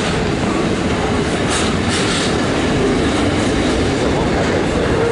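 Container freight train's wagons rolling past close by: a steady, loud rumble and rattle of steel wheels on the rails.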